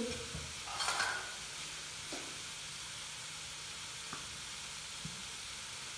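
Chicken and vegetable filling frying in oil in a kadhai: a steady, soft sizzle, with a brief louder rush about a second in and a few light clicks.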